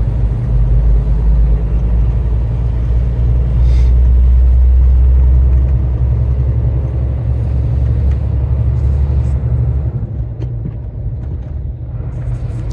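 Iveco Stralis truck's engine and road noise heard from inside the cab while driving: a steady low drone that swells a few seconds in and eases off near the end.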